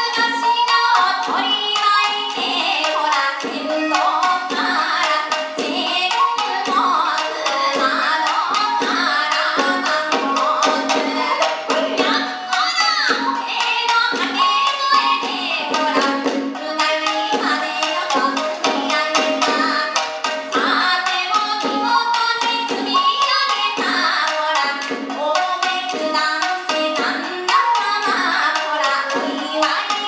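Japanese folk song (min'yō) performed live: a woman sings a wavering melody over shamisen, shakuhachi and drum accompaniment, the shamisen's plucks running steadily throughout.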